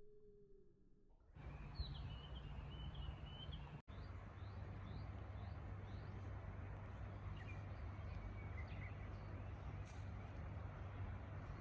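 Outdoor wind noise on the microphone with small birds chirping: a twittering call and a string of short, high chirps. The ambience cuts in about a second in, after a faint held tone, and drops out for an instant near four seconds.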